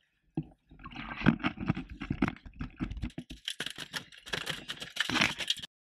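Handling noise from a camera mounted on a fishing gaff: a quick run of knocks, scrapes and rattles as the gaff is swung from the water into the boat and bumps about the deck. It cuts off abruptly near the end.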